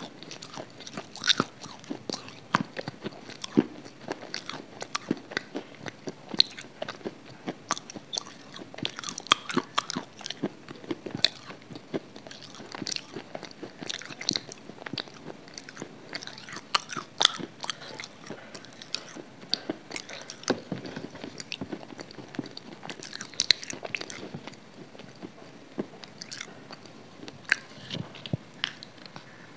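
Close-miked eating sounds: a person biting and chewing a crunchy food, with many sharp, irregular crackles right at the microphone.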